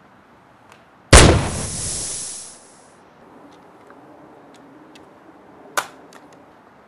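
A single loud blast about a second in, dying away over about a second and a half, then a sharp crack near the end.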